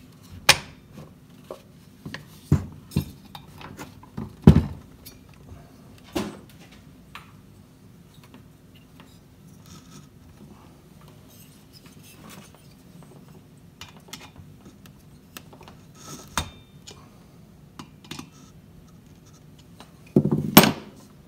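Scattered metal clinks and knocks of chainsaw parts and hand tools being handled on a workbench during reassembly. The knocks are irregular, with the loudest about four and a half seconds in and a short cluster near the end.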